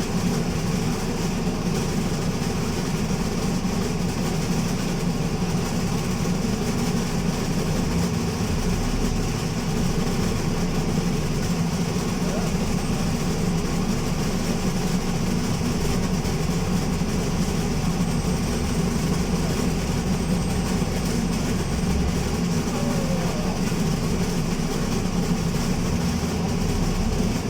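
Alexander Dennis Enviro200 MMC single-deck bus heard from on board while under way: a steady, loud rumble from the engine and running gear, with the deepest rumble swelling louder a few times.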